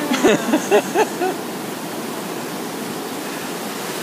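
Post-storm surf washing in, a steady rush of broken white water, with a few short vocal sounds in the first second or so.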